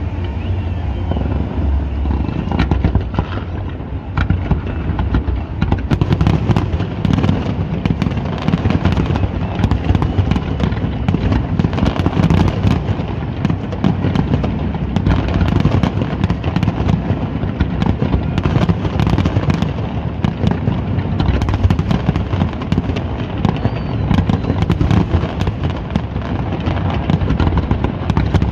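A fireworks display: a dense, unbroken barrage of bangs and crackling over a low rumble, growing thicker about five seconds in.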